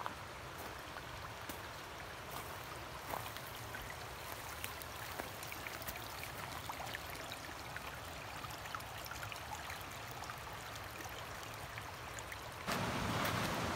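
Shallow mountain creek trickling over rocks: a faint, steady babble with a few light ticks. About a second before the end, a louder rushing noise starts suddenly.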